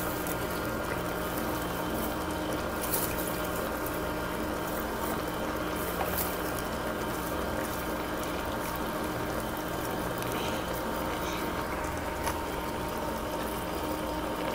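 Liquid simmering steadily in a steel pot of steamed fish, over a faint steady hum and a few light taps.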